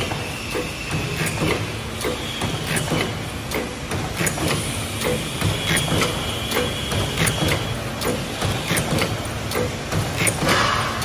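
Paper cup embossing machine running, its mechanism clicking at a regular beat of about two strokes a second over a steady motor hum. A short hiss comes near the end.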